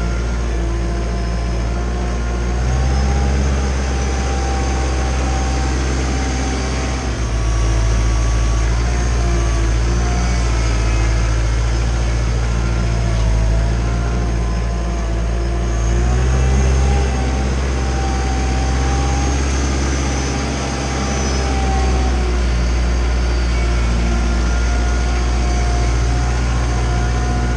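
Kubota L3940 tractor's diesel engine running under work as the front loader pushes and spreads sand, its speed rising and falling a few times.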